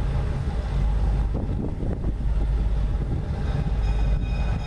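Diesel passenger train approaching with a steady low rumble; about three-quarters of the way in, its horn begins to sound as a steady chord of several high tones.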